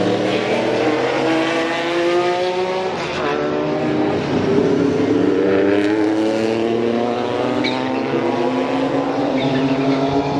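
Historic race car engines at full throttle, the pitch climbing steadily, dropping back about three seconds in and again around six to seven seconds, then climbing once more, as they accelerate through the gears.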